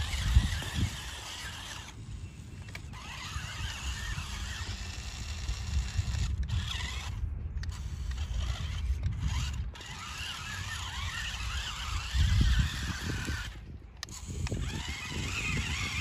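Toy RC rock crawler's small electric motor and plastic gearbox whining as it drives and struggles through sticky mud, its tyres caked and clogging. Bursts of low rumble come and go, the strongest a little before the end.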